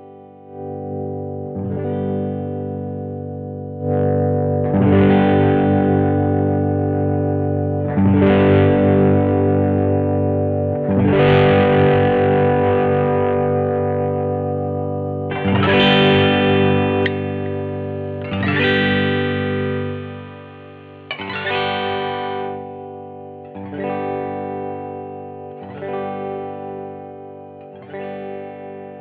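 1982 Vantage VE-550 electric guitar played through an effects chain, chords strummed every few seconds and left to ring out and fade. The ringing notes pulse and waver.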